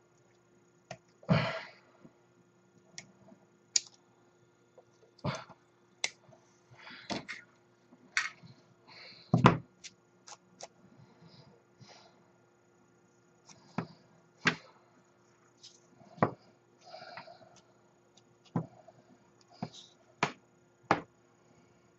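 Irregular small clicks, taps and brief rustles of plastic model-kit parts and tools being handled and set down on a workbench, a few every couple of seconds.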